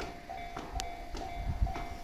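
Japanese railway level-crossing warning bell ringing its repeating "kan-kan", about two rings a second, with the low rumble of a train on the rails growing in about halfway through.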